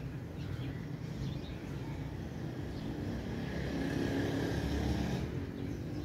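A motor vehicle passing by, its engine rumble swelling to a peak about four to five seconds in and then easing off, with faint bird chirps.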